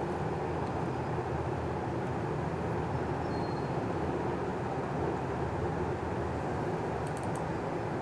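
Steady, even background rushing noise with no clear source, with a few faint high clicks about seven seconds in.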